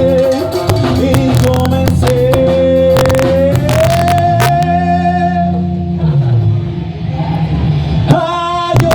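Live ska band playing: drums, bass and guitar keep a steady beat under a long held melodic note that slides up in pitch about three and a half seconds in.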